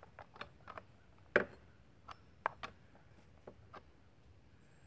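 Scattered light metallic clicks of a hand tool working a chainsaw's bar-mount nuts as they are brought snug but not tight. There are about ten irregular ticks, the sharpest about a second and a half in.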